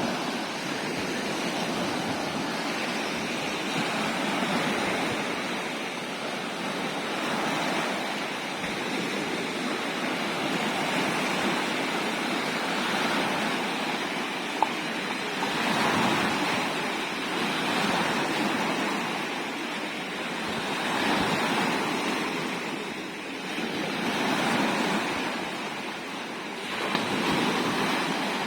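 Sea waves washing onto the shore: a continuous surf noise that swells and eases every few seconds, with a single short click about halfway through.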